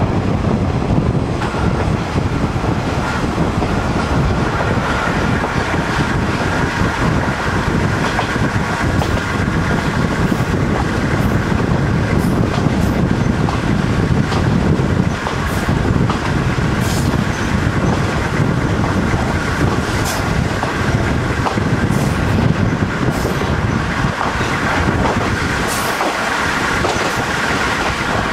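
Kominato Railway KiHa 200 diesel railcar running along the line, heard from on board: a steady low rumble with a whine that comes in about a second in, and scattered ticks from the wheels on the rails.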